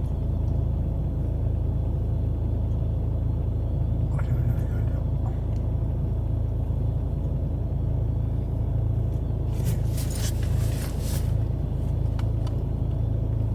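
Steady low rumble of a car with its engine running, heard from inside the cabin, with a few faint rustles about ten seconds in.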